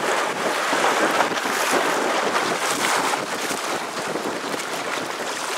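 Wind buffeting the microphone over water rushing past the hull of an inflatable dinghy under way, a steady noise that eases slightly near the end.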